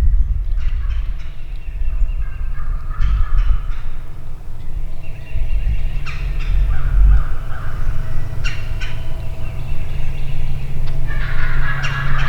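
Wild turkey gobblers gobbling repeatedly in the woods, with several rattling gobbles over the stretch, the loudest near the end. A low rumble runs underneath.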